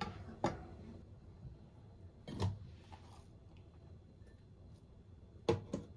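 Several short knocks and clicks: a pair at the start, a duller thump about two and a half seconds in, and a quick pair near the end, over a faint steady hiss.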